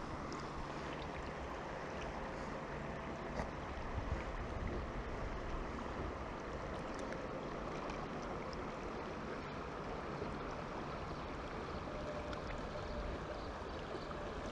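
Moving river water flowing steadily past a wading angler, an even rushing hiss.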